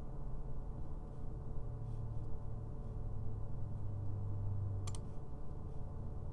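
Steady low electrical hum with a single sharp computer-mouse click about five seconds in, and a few faint ticks before it.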